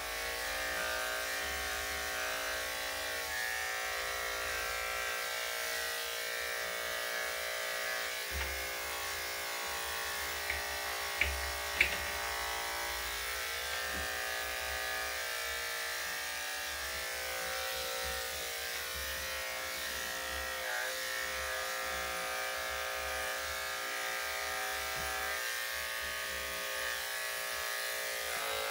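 Electric dog grooming clippers running with a steady buzzing hum. A few sharp clicks come about eleven seconds in.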